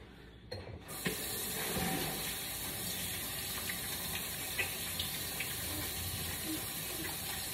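Kitchen sink faucet turned on about a second in, water running steadily into the sink as hands are rinsed under it.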